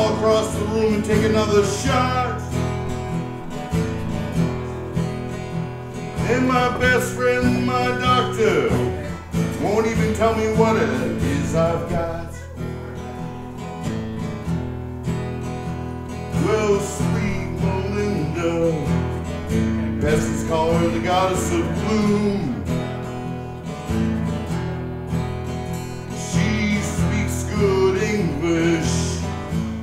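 Live band music with guitar prominent, playing continuously.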